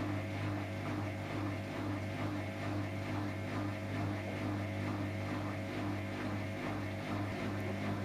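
Background music with a steady pulse, about three beats a second, over a low sustained drone.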